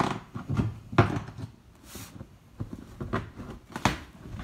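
Metal staples being pried out of a cardboard shipping box by hand: a string of sharp clicks and snaps at irregular intervals, with a brief scrape of cardboard about two seconds in.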